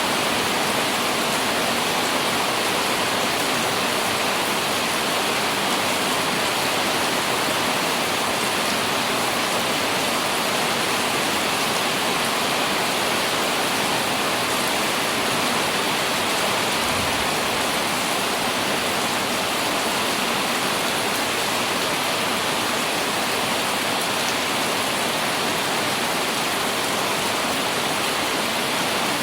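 Light rain falling on an umbrella: a steady, even hiss of drops with no let-up.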